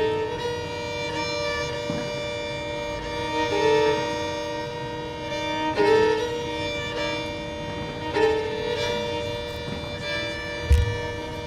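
Three violins playing slow, held chords together, moving to a new chord about every two seconds. A short low thump sounds near the end.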